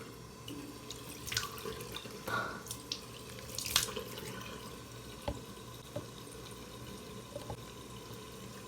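Tap water running steadily into a sink, with a few splashes and light knocks during the first half.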